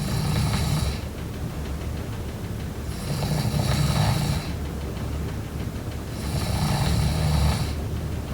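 A person snoring in deep sleep, one long rough snore about every three seconds, three in all.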